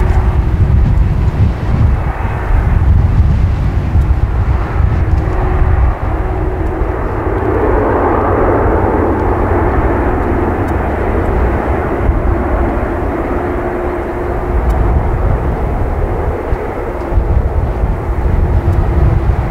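Boeing 747-400's four turbofan engines running at low taxi power: a loud, steady jet rumble with a low hum, swelling for a few seconds in the middle.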